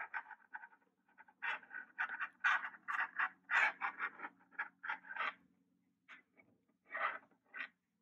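Soft, irregular scratching and rustling of fingers working beading wire through a clasp and back into a crimp tube, with small clicks of the beads and metal findings, several scrapes a second.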